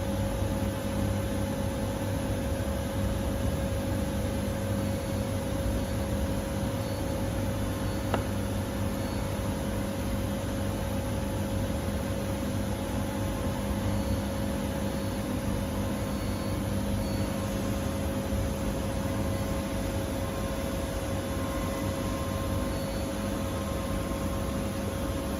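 A machine running steadily: a constant hum with an even hiss that does not change.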